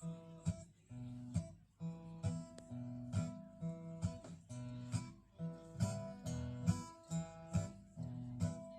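Strummed acoustic guitar chords played live, a song's introduction before the singing starts, with a steady rhythm of strokes.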